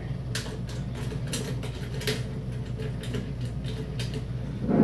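Light clicks and scrapes of a metal bracket and its thumb screw being pushed into place and turned by hand against a sheet-metal monitor chassis, over a steady low hum.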